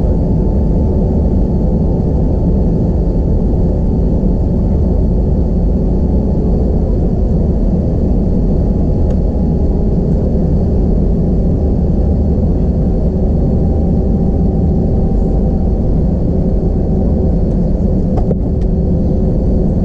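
Airbus A321-231 cabin during taxi: its IAE V2500 turbofans running at low power, heard from a window seat by the wing as a steady rumble with a few constant whining tones.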